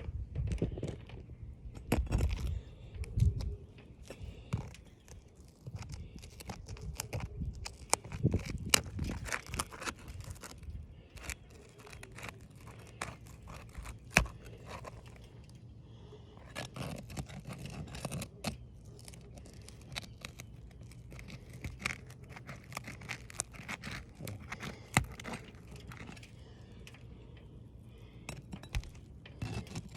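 Asphalt shingles being pried apart: scraping, crackling and tearing as the shingle's sealant strip is broken loose, with loose granules crunching and many sharp clicks and taps in irregular runs.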